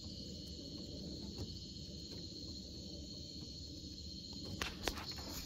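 Night chorus of crickets trilling steadily in a continuous high-pitched drone, over a low rumble, with a few faint clicks near the end.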